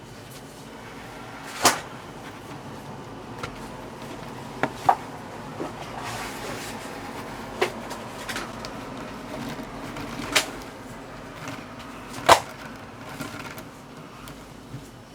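Sharp plastic clicks and knocks as a small LEGO Technic bulldozer model is handled: about six separate taps, two of them close together, over a steady low room hum.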